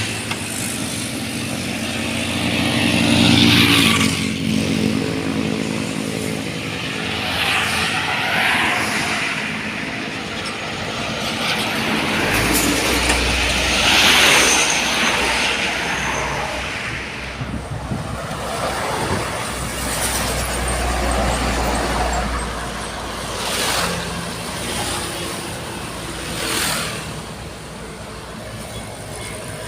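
Road traffic passing close by: vehicles, trucks among them, going past one after another, each with an engine and a tyre whoosh. A heavy engine's low drone holds through the middle.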